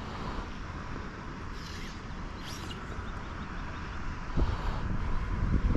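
Wind buffeting the head-cam microphone over a steady rush of water from the dam spillway, the gusts growing stronger about four seconds in.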